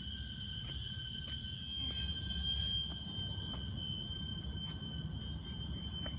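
Steady high-pitched drone of insects in tropical hill forest at dawn, over a low rumble with a few faint ticks.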